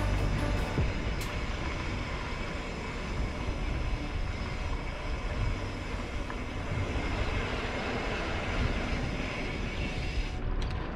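Mountain bike riding along a dirt trail: a steady rush of wind on the microphone mixed with tyres rolling over the trail surface.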